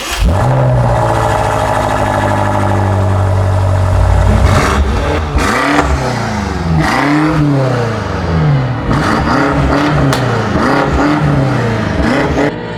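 2020 BMW M8 Competition's twin-turbo V8, still on its stock exhaust, comes in loud and holds a steady high idle for about four seconds. It is then revved over and over, each rev rising and falling in pitch, until it cuts off just before the end.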